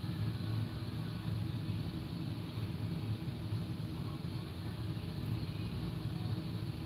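A steady low mechanical hum that does not change.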